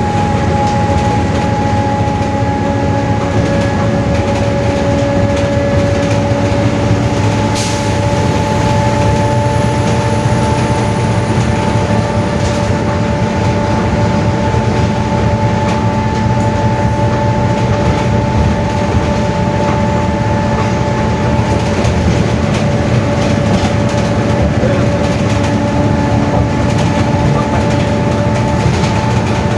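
Mercedes-Benz OF-1721 bus's rear differential howling very loud at a steady road speed: a constant two-note whine over the bus's engine and road noise, the gear howl of a noisy differential.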